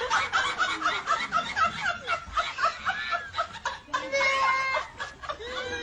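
A person laughing in a rapid run of short, high-pitched "ha" sounds, several a second, breaking into a drawn-out high vocal note near the end.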